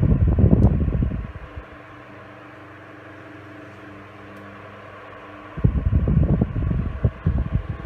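Knapp-Monarch Jack Frost 12-inch oscillating table fan running on low speed with a steady motor hum. Its breeze buffets the microphone twice as the head sweeps past: once at the start for about a second and a half, and again from about five and a half seconds in.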